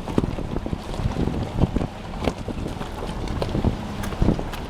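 Vehicle driving over a bumpy gravel back road: a steady low rumble of engine and tyres with frequent short knocks and rattles from the bumps.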